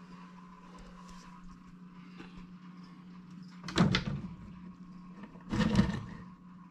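Two short scraping knocks about two seconds apart, plausibly the glass terrarium's sliding front doors being moved, over a steady electrical hum.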